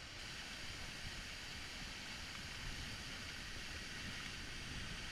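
Steady rush of water from a waterfall and creek, an even hiss-like roar.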